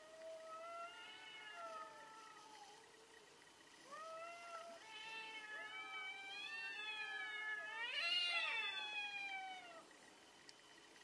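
Two domestic cats yowling at each other in a face-off: long, wavering, drawn-out howls that overlap, with a short lull about three seconds in. They build to the loudest, rising wail about eight seconds in, then die away near the end. This is the aggressive yowling of cats squaring up to fight.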